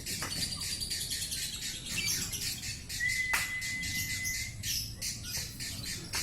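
Lovebird singing in the unusual 'konslet' style: a dense stream of rapid high chirps, with a long level whistle about three seconds in.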